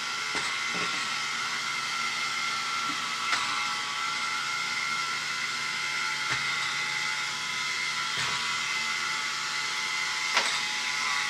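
Two small 1:48 TT plastic gear motors whining steadily as two single-wheel bump-and-go robots drive around, with several sharp knocks spread through as the robots bump into obstacles and swivel away.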